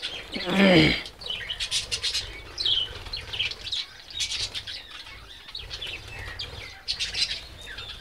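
A flock of budgerigars chattering: a steady stream of quick high chirps and short falling warbles from many birds at once.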